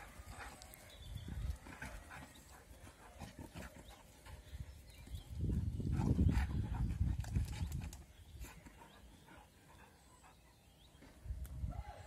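Two dogs playing, with a low rumbling growl that is loudest for a few seconds around the middle, amid scattered short scuffling clicks.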